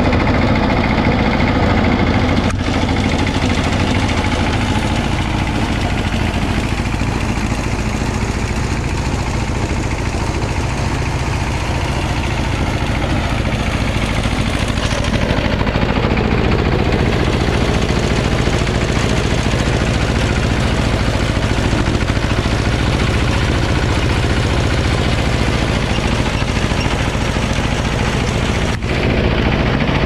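Small single-cylinder diesel engine running steadily, driving a paddy thresher as bundles of rice stalks are fed into its drum.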